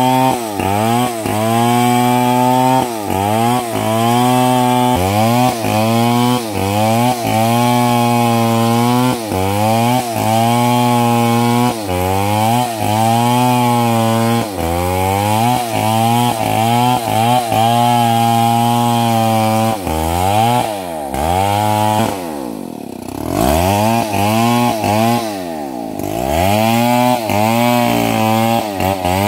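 STIHL MS 070, a big single-cylinder two-stroke chainsaw, ripping lengthwise through a log at high revs. Its engine pitch dips and recovers more than once a second as the bar bites into the wood. About two-thirds of the way in it drops back to lower revs twice, rising and falling in between, then runs up again into the cut near the end.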